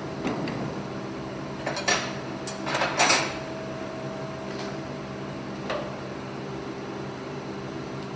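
Forged steel axe head and blacksmith's tongs clanking against the metal ledge of a forge hood as the head is set down: a few sharp metallic clanks about two to three seconds in, the loudest near three seconds leaving a faint ring, and a lighter clank near six seconds. A steady hum underlies it all.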